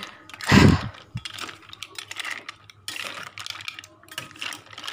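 Green mussel shells clicking and clattering against each other and the pan as they are stirred while cooking, with a dull thump about half a second in.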